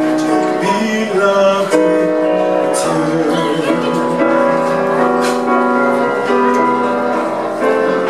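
Live band music: a grand piano and other instruments playing under a male singer's held notes.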